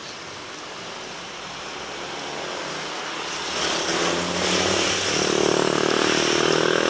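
Road traffic passing close by: an engine grows louder from about three and a half seconds in as cars drive past at close range, and stays loud to the end.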